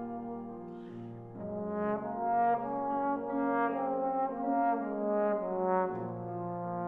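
Trombone playing a melodic passage with piano accompaniment: a held low note, then a run of shorter notes from about a second and a half in, settling onto another held low note near the end.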